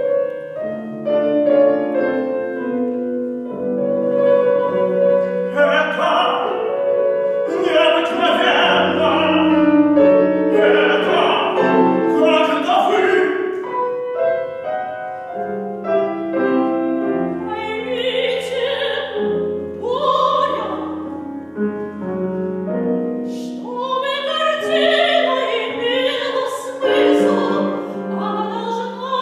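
Contemporary chamber opera: piano and string quartet play sustained notes, and from about six seconds in a woman's operatic voice sings a series of phrases over them.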